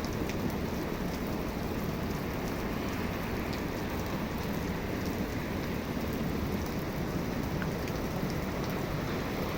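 Heavy rain falling steadily in a severe thunderstorm, a constant rushing hiss with faint scattered drop ticks.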